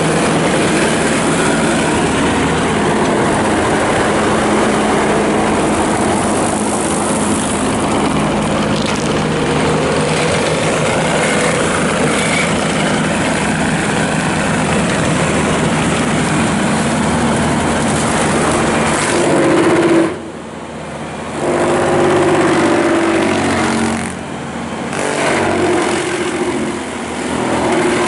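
Skid steer engine running hard, driving a 72-inch MTL brush cutter with a hydraulic piston motor as it cuts and mulches brush. The sound is steady for most of the time, drops sharply for a moment about two-thirds through, then surges and dips twice more near the end as the load changes.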